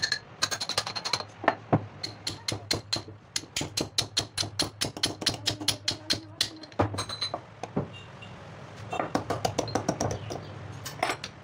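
Rapid metal-on-metal clicks and taps, about four to five a second, as a piston pin is worked into an engine piston and connecting rod and pliers are used at the pin bore. The clicks stop about seven seconds in.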